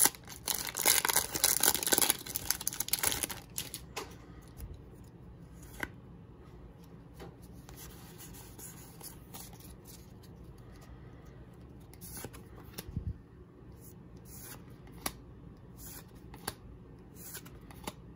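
Foil Pokémon booster pack wrapper crinkling and tearing open for the first three seconds or so, then quieter handling of the trading cards with scattered soft clicks.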